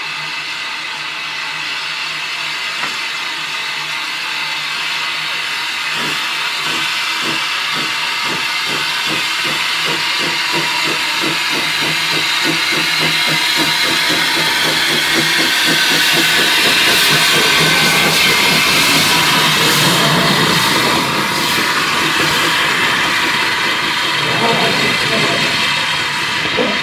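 Victorian 0-4-0 saddle tank steam locomotive No. 1340 'Trojan' pulling away with a carriage. Loud steam hiss runs throughout, and regular exhaust chuffs come in about six seconds in. The sound grows louder as the engine gets under way.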